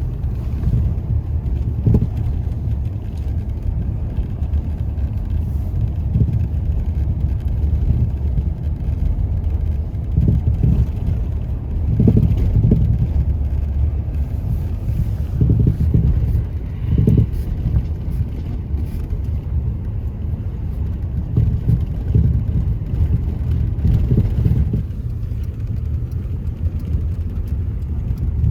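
Car driving: a steady low rumble of road and engine noise, with brief louder surges every few seconds.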